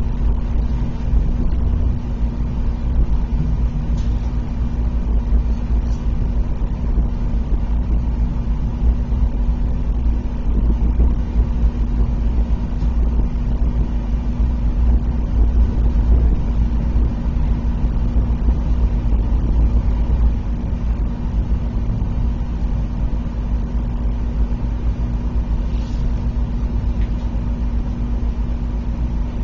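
ICE high-speed train running slowly into a station, heard inside the carriage: a steady low rumble with a constant hum and a few faint clicks.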